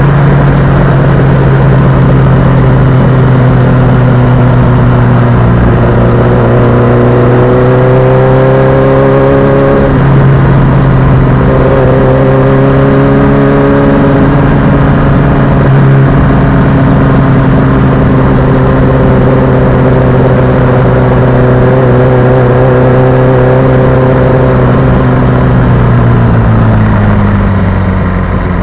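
Sport motorcycle engine running under way at steady cruising revs, with wind and road noise. The engine note climbs and drops back a couple of times, then falls away near the end as the throttle closes.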